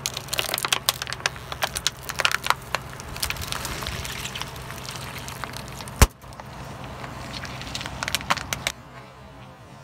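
A plastic bottle full of orbeez water beads crackling and crunching under a slowly rolling car tyre, then one loud sharp bang about six seconds in as the orbeez-filled long balloon bursts, with a few more crackles after. A steady low hum of the car runs underneath.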